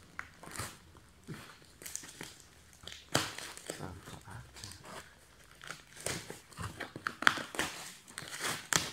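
A cardboard pillow box being opened by hand: its flaps are pulled apart with irregular crinkling, scraping and crackling, with sharper crackles about three seconds in and just after seven seconds.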